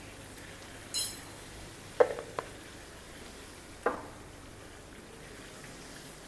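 A metal spoon stirring in a cooking pan and striking it: a bright ringing clink about a second in, then three short knocks, two close together near two seconds and one near four. Under them runs a faint steady sizzle from the pan.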